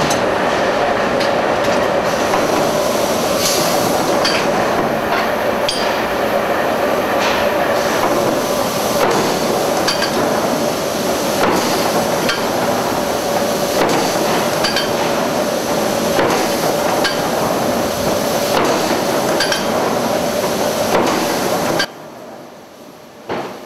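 Forge-floor machinery runs with a steady drone and hum while hot steel is struck and handled, giving repeated sharp metallic strikes and clanks. Near the end the noise drops abruptly, and one last knock follows.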